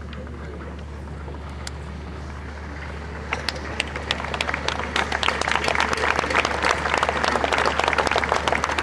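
A large crowd breaks into applause about three seconds in, the clapping building quickly and carrying on, over a steady low hum.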